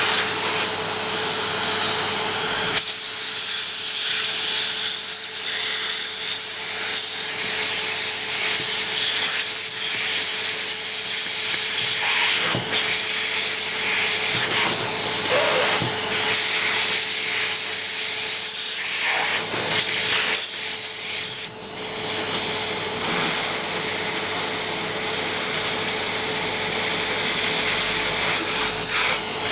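Ariete Handy Force 1 stick vacuum running with a steady motor whine. About three seconds in, a louder rushing, rubbing noise sets in as it works against a surface, broken by short dips twice.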